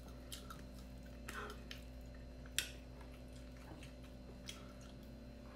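Quiet eating sounds: faint soft ticks and taps as fingers pick fish from a bowl, with one sharper click about two and a half seconds in, over a steady low hum.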